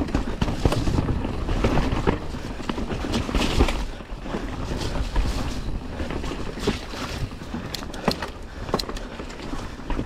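Wind buffeting the microphone of a mountain bike ridden down a rough dirt trail, with tyre noise and scattered knocks and rattles from the bike over bumps.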